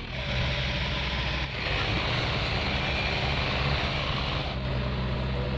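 Diesel engines of farm tractors and a backhoe loader running hard under load, hauling and pushing a trolley heavily loaded with sugarcane. The engine note is steady and loud, with small shifts about a second and a half in and again near the end.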